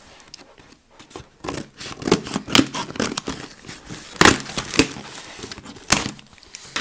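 Cardboard shipping box being torn open by hand: a run of irregular tearing and crinkling noises as the tape and flaps give, with the loudest rips about four and six seconds in.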